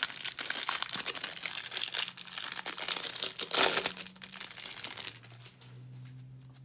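Clear plastic wrapper of a trading-card hanger pack crinkling and tearing as it is pulled open by hand, with one loud rip about three and a half seconds in. After about five seconds it goes quieter as the card stack comes out.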